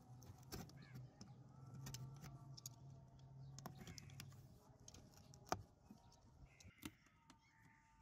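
Faint scraping of a small blade cutting through corrugated cardboard, with a few sharp clicks; the sharpest comes about five and a half seconds in.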